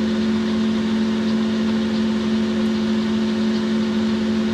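Boxford centre lathe running at a steady speed, its motor and drive giving an even hum.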